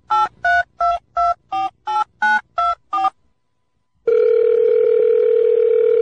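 Touch-tone phone keypad dialing: about nine quick two-pitch beeps, roughly three a second. After a pause of about a second comes a loud, steady low phone-line tone.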